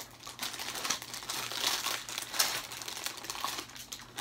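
Plastic foil wrappers of HeroClix booster packs crinkling as the packs are handled and opened: a dense, continuous run of crackles.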